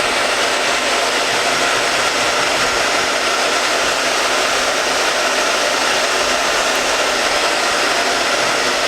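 Hand-held hot-air blower running steadily on its cold setting, a constant rushing of air, drying the glue on an inflatable's repair patch before the patch is pressed on.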